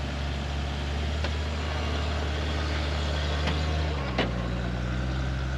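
Off-road vehicle's engine running steadily at a low idle, its note shifting slightly about four seconds in, with a single sharp knock just after.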